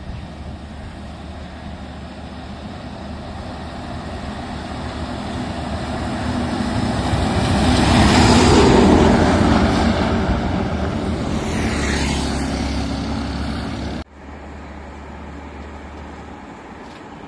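Ashok Leyland multi-axle lorry's diesel engine and tyres growing louder as it approaches, passing close about eight to nine seconds in, then fading away. The sound cuts off suddenly about fourteen seconds in, replaced by fainter, steady distant traffic.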